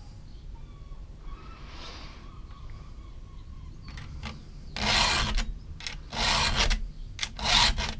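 Round file stroked across the cutter teeth of a chainsaw chain by hand. Three rasping file strokes come in the second half, a little over a second apart. The chain's cutters are badly worn and are being reprofiled.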